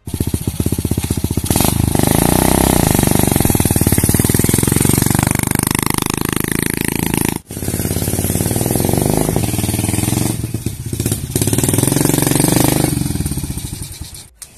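Small single-cylinder underbone motorcycle with a loud open (brong) exhaust, running and revving up and down as it is ridden. The engine cuts out briefly about halfway through, then runs again and dies away near the end.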